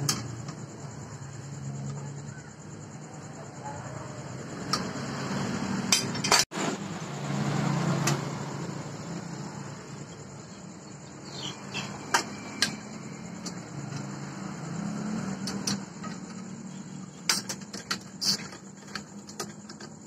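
Metal clicks and clanks from a homemade steel drill stand's lever arm and linkage being worked up and down by hand, sharp knocks coming now and then and more often in the second half.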